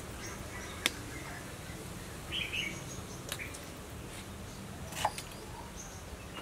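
Kitchen knife knocking on a wooden cutting board while slicing pineapple: a few sharp knocks, the loudest about a second in. Birds chirp in the background.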